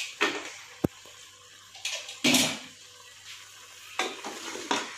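A spoon scraping and clinking against the inside of an aluminium pressure cooker while stirring pressure-cooked mutton in its broth. There is one sharp clink just under a second in, and several short scrapes follow.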